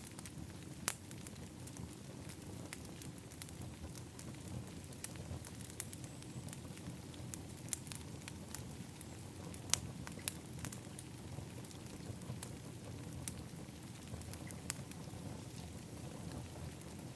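Wood fire in an outdoor fire pit crackling: irregular sharp pops over a steady low rumble, with louder pops about a second in and again near the middle.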